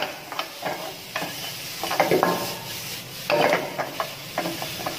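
Steel ladle scraping and clinking against a kadai as chopped onion and green chilli are stirred in hot oil, over a light sizzle. The strokes are irregular, busiest about two and three and a half seconds in.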